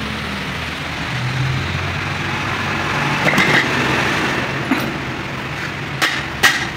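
Steady engine and road-traffic noise with a low rumble that swells a little in the middle. A few sharp metallic clicks and knocks come near the end as a truck clutch disc is handled on its pressure plate.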